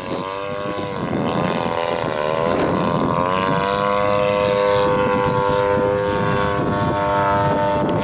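Engine and propeller of a 1/3-scale Piper Super Cub RC aircraft in flight: the pitch dips and climbs again over the first few seconds, then holds nearly steady. Wind rumbles on the microphone underneath.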